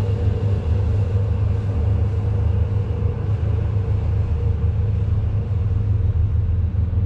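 Boat diesel engine running steadily: a deep low rumble with a faint steady hum above it.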